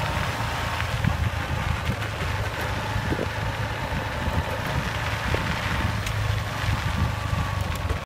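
A vehicle travelling over a dirt road: a steady low engine and road rumble, with small scattered crackles from the rough surface.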